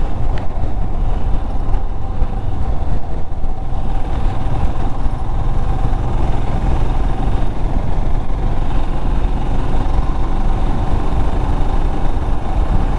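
Royal Enfield Himalayan's single-cylinder engine running steadily while the motorcycle cruises, under a heavy, unsteady low rumble of wind on the microphone.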